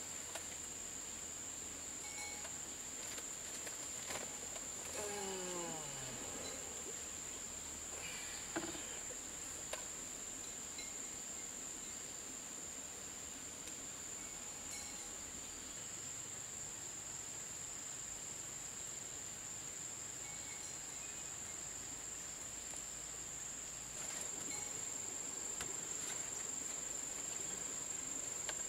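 Insects chirring outdoors: a steady, unbroken high-pitched drone. About five seconds in, a brief falling call sweeps down in pitch over it, and the background gets a little louder near the end.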